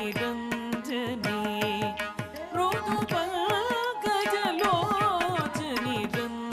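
Carnatic music accompanying Kuchipudi dance: a melody with wavering, sliding ornaments over a held low note, driven by a quick run of sharp percussion strokes.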